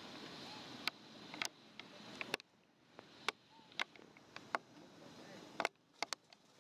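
About ten irregular sharp clicks and crackles over a faint hiss, from long-tailed macaques shifting and grooming on dry leaf litter.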